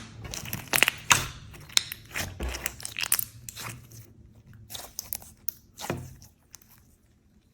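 Slime being squeezed and pressed by hand, giving an irregular run of sharp crunches and crackling pops that die away near the end.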